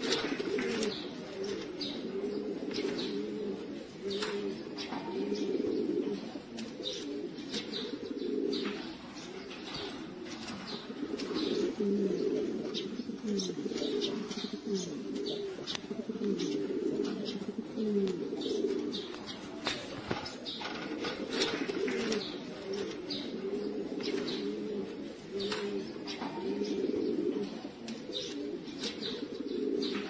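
A flock of domestic pigeons cooing together, many low burbling coos overlapping without a break, with scattered sharp clicks throughout.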